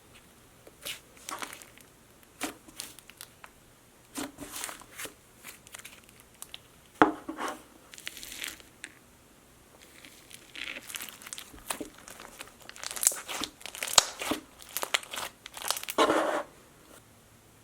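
Irregular crinkling and crackling handling sounds, short sharp crackles in clusters with brief pauses between them.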